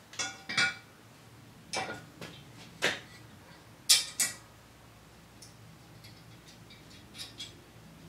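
Cast-iron skillet knocking and clinking against a wall hook as it is hung up by its handle: a scattered series of sharp knocks, the loudest about four seconds in.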